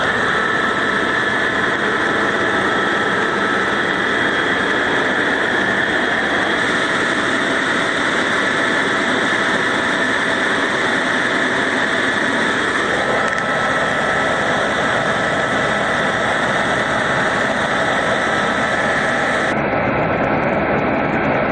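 Helicopter cabin noise in flight: turbine engine and rotor running evenly, with a thin steady whine above the rumble.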